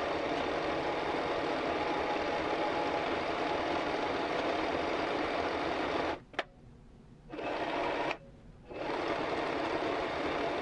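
Singer M1500 electric sewing machine running, stitching steadily, with the motor stopping twice for about a second around six and eight seconds in, a single click in the first pause.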